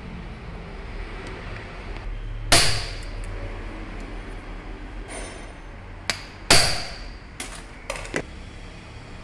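Metal-on-metal hammer blows on parts of a Bosch diesel injection pump being dismantled: two hard strikes a few seconds apart, each ringing briefly, followed by several lighter taps and clinks.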